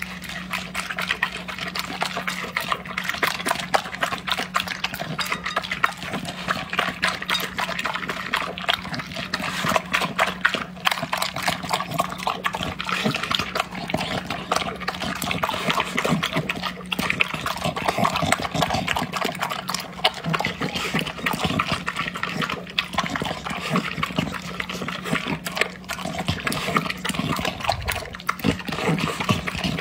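Dog eating water-soaked kibble from a bowl: a rapid, continuous run of wet crunching, chewing and lapping sounds.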